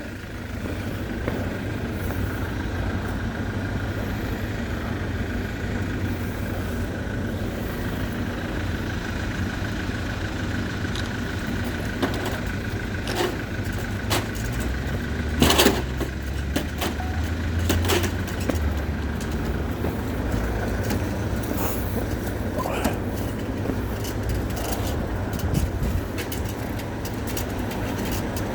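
Motor vehicle engine running steadily, a low rumble with a faint steady whine, scattered light clicks, and a louder knock about fifteen seconds in.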